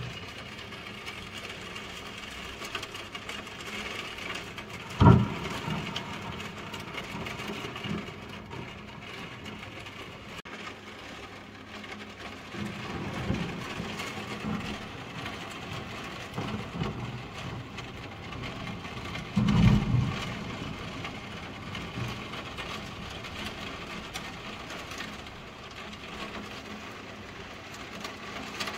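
Heavy rain falling steadily, with a sharp clap of thunder about five seconds in, the loudest moment, and a longer low rumble of thunder about twenty seconds in.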